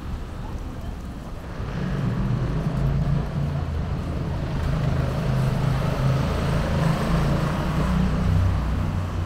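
Low engine hum with a rushing noise that grows louder about a second and a half in.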